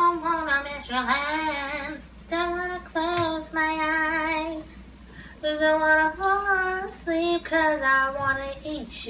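A woman singing unaccompanied, in several long held phrases with a slightly wavering pitch and short pauses between them.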